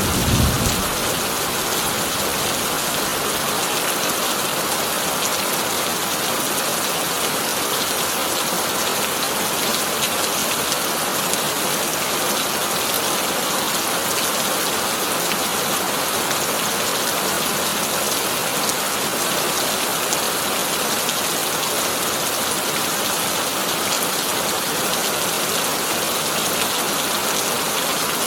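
Heavy rain falling steadily on a corrugated tin roof, an even, unbroken hiss. The last of a low thunder rumble dies away in the first second.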